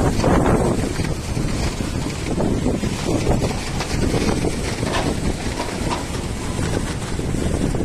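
Strong wind buffeting the microphone: a low, rumbling rush that swells and eases in gusts.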